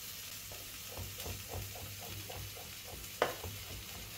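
Mushrooms sizzling steadily in oil in a frying pan on a gas hob. From about a second in comes a quick run of knife taps on a cutting board, about six a second, as garlic cloves are cut, then a single sharper knock near the end.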